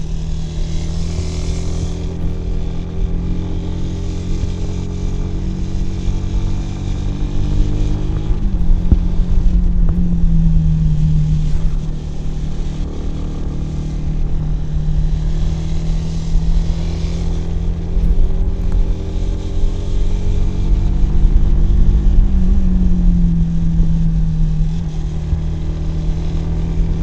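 Kawasaki W175's air-cooled single-cylinder four-stroke engine pulling steadily on the road, its exhaust note rising in pitch and loudness twice, about a third of the way in and again near the end, as the throttle is opened.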